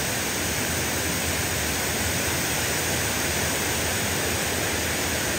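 Rushing water of a waterfall: a steady, even hiss without breaks.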